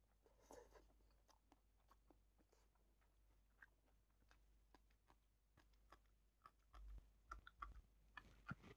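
Faint chewing and wet mouth clicks of a person eating with his hands, biting on a long green chilli, with a run of sharper, louder bites near the end.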